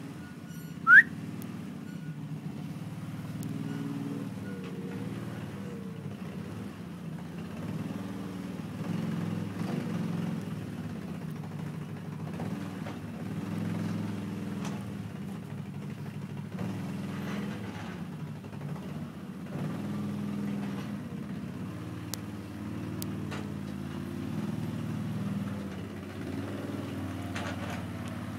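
CFMOTO Terralander 800 quad's V-twin engine running at low revs, its pitch rising and falling as it pushes snow with a front plough blade. About a second in, a short rising whistle is the loudest sound.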